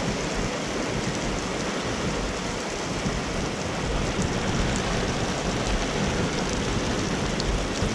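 Heavy rain pouring steadily onto an asphalt country road.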